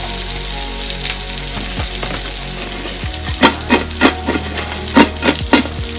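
Background music with held chords and a low bass under a crackling, sizzle-like hiss; about three seconds in, a steady beat of sharp strokes, about three a second, comes in.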